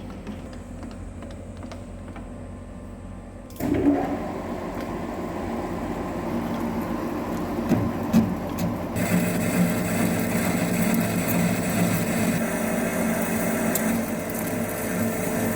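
Metal lathe running, then a button-insert tool starts cutting about four seconds in, machining out the weld on a steel pin in an interrupted cut. The cutting noise turns harsher and louder about halfway through.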